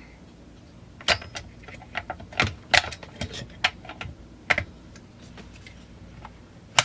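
Irregular light clicks and knocks of a chainsaw's plastic starter cover being handled, checked and pressed into place on the saw body, about a dozen over the few seconds with a sharper one near the end.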